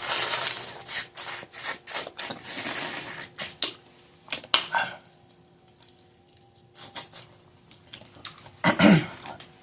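Slurping as juice is sucked from a crawfish head, followed by wet smacking and clicks of chewing and shell handling, with a short voiced 'mm' near the end.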